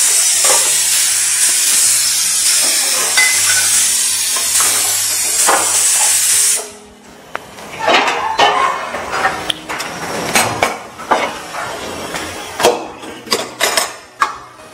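Loud steady hiss of steam venting from a pressure cooker, cutting off suddenly about seven seconds in. After it come scattered clinks and knocks of steel pots and utensils being handled.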